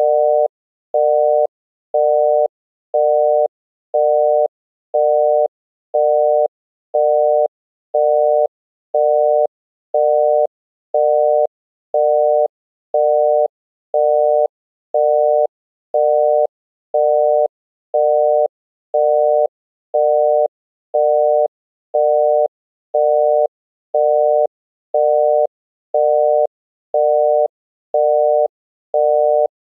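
Obsolete US telephone busy tone: a single rough tone pulsing half a second on, half a second off, about once a second, signalling that the called line is busy.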